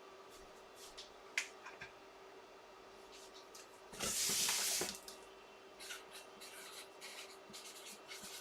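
Marker writing a name: scattered short scratchy strokes, with one longer, louder hissing stroke about four seconds in.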